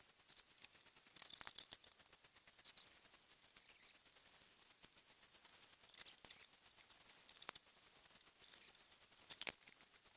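Near silence with faint small clicks and scratches from small parts and wires being handled, with a few sharper ticks about a second and a half, six, seven and a half and nine and a half seconds in.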